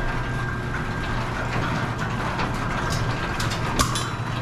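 Garage door running on its electric opener: a steady motor hum with the rollers rumbling along the track, scattered small clicks and one sharp click near the end. The worn rollers make most of the door's noise, by the technician's account.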